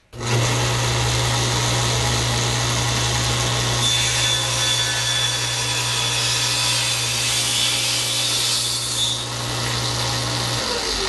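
Table saw switched on and running, with a tenon cheek cut by pushing the piece through the blade in a tenoning jig; a higher whine rides over the motor from about four to nine seconds in. The saw is switched off near the end and the blade starts to wind down in falling pitch.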